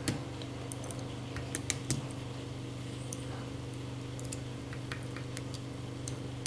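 Scattered small clicks and taps from the joints and parts of a Soul of Chogokin Getter Dragon die-cast figure as it is posed by hand, heard over a steady low hum.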